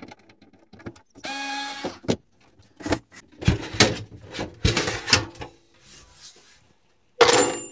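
Sheet-metal top cover of a Yamaha KX580SE cassette deck being slid off the chassis and handled: a ringing metallic scrape about a second in, then a series of knocks and clatters, and another loud scrape near the end.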